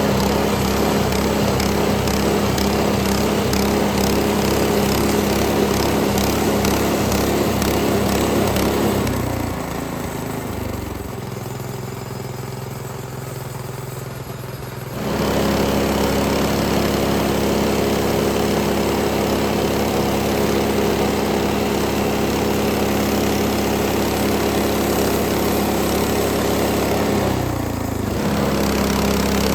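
Frontier OS18 portable bandsaw mill running with its small engine at full speed. The engine drops to a lower, quieter idle about nine seconds in, revs back up to full speed about fifteen seconds in, and dips briefly once more near the end.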